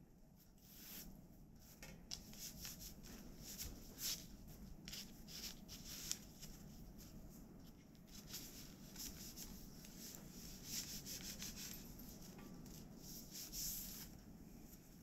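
Tree-bark fibre threads and wooden loom parts on a backstrap loom rubbing and scraping as the cloth is woven: a run of short, dry rustling strokes, sparse at first and busier after about two seconds.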